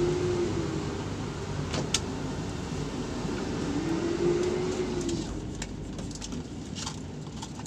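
Engine and road noise inside the cabin of a moving car: a steady low rumble and hiss, with a hum that rises and falls in pitch twice. A sharp click about two seconds in, and a few light ticks near the end.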